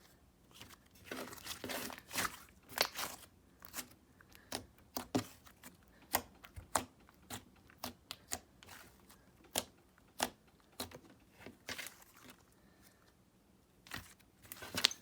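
Thick, smooth slime being squished and stretched by hand, giving off irregular sharp clicks and pops: a very clicky slime.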